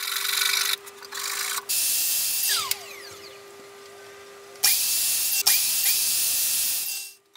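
Mitre saw cutting dowel to length: the motor runs and winds down about a third of the way in, then whines back up about two-thirds in, stops briefly, restarts and cuts off sharply just before the end.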